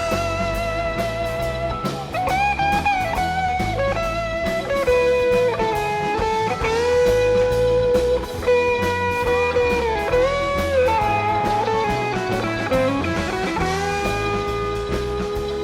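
Live rock band music: an electric guitar plays long, bending lead notes over bass and drums.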